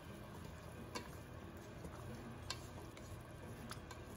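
Wooden spatula stirring pork belly in a wok, with a few light clicks of wood against the pan over a faint steady low hum.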